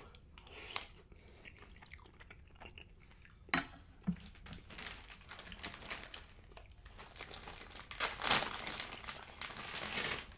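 Close-miked chewing of a mouthful of soft cheesy rice, then, from about three and a half seconds in, a plastic seaweed snack packet crinkling and crackling as it is handled and opened.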